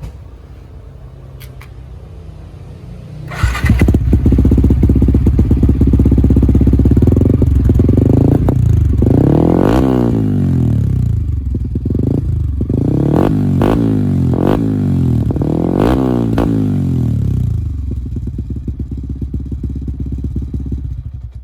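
Yamaha Y15ZR's single-cylinder four-stroke engine running through an HPSP 35 mm stock-look exhaust. It idles, gets much louder about three seconds in, then is revved in a series of quick blips that rise and fall, and settles back to idle before cutting off at the end.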